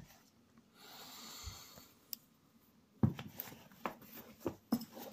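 Quiet handling noise: a soft breath-like hiss about a second in, then from about three seconds a run of light clicks, knocks and rustles as canvas webbing kit and the handheld camera are moved about.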